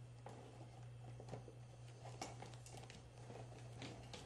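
Faint rustling and a few light ticks of hands rummaging inside a canvas tote bag, over a steady low hum.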